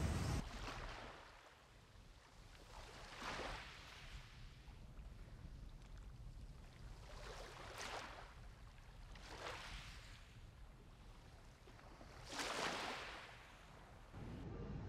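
Infinity pool water lapping and sloshing at the pool edge, coming in soft, quiet swells about five times.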